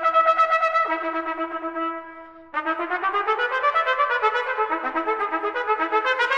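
Unaccompanied B-flat trumpet playing a fast étude passage: quick notes, then one note held for about a second. After a short break a little past two seconds in, rapid running notes start again.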